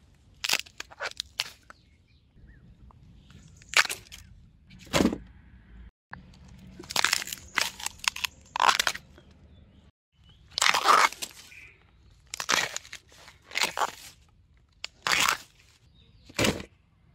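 Thin bamboo shoots being snapped off by hand: a dozen or so short, sharp cracks at irregular intervals.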